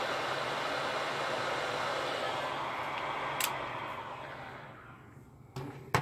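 Electric heat gun blowing hot air at about 460 degrees onto the heat-shrink insulation sleeve of a crimped ring terminal, shrinking it. There is a steady hiss of air, then a click about three and a half seconds in, and the noise dies away over the next second or so. A couple of sharp knocks come near the end.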